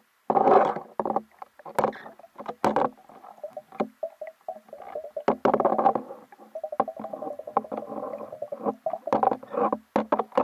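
Muffled underwater sloshing and bubbling with irregular sharp knocks, heard through an underwater camera's housing as a diver moves through the water and handles a turtle.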